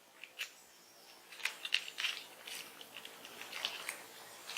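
Small cardboard mascara box being handled: scattered light clicks and rustles of packaging, busiest from about a second and a half in.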